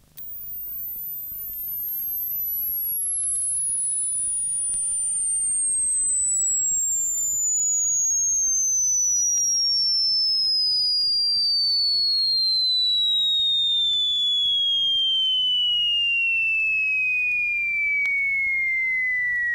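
Sine-wave glide tone from an old calibration tape, played back on a Sony TC-350 reel-to-reel deck. The pure tone starts at 15,000 cycles per second and slides smoothly and steadily down to a mid-high whistle. It is a speaker test sweep: a listener checks it for buzzes, rattles or room resonances as it descends.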